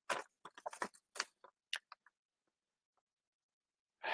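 Sheets of paper being handled: a quick series of short, crisp rustles and crackles over about two seconds, then quiet, with a breath near the end.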